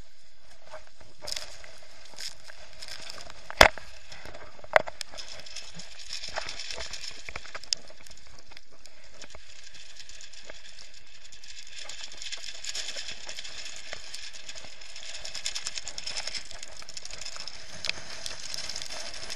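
Steady rush of high wind and wind-chop spray against an action camera's housing on a sailing kayak, with a few sharp knocks from the boat and its rigging, the loudest about three and a half seconds in.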